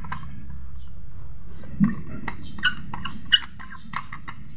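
Homemade fish stunner's vibrating platinum contact breaker buzzing steadily as it drives the coil and lights 100 W bulbs, with a cluster of sharp clicks and short chirps from about two to four seconds in.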